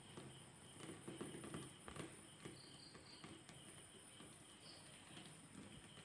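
Near silence: faint room tone with a few light clicks and soft handling noises about a second or two in.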